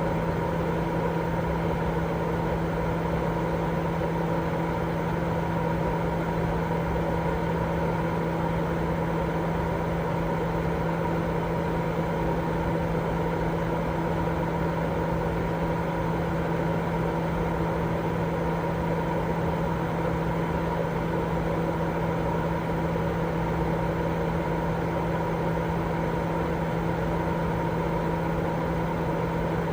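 Continuous baby-sleep white noise: an even, deep rushing sound with a steady hum running through it, unchanging throughout.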